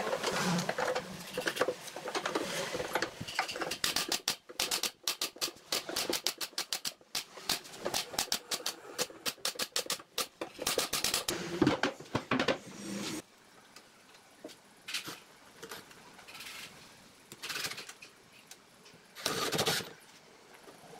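Woodworking shop noise: a fast run of sharp clicks and taps for several seconds, then quieter with a few short scraping bursts.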